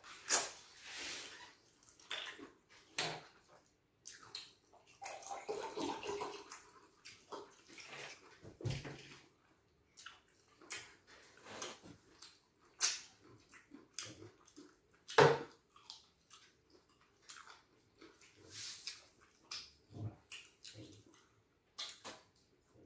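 Wet, close-up eating sounds of fufu and stew being chewed and swallowed: irregular smacks and clicks, the loudest a sharp one about fifteen seconds in.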